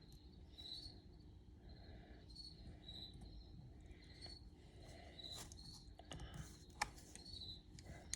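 Faint, repeated high chirps of a cricket, with a few small clicks, the sharpest about seven seconds in.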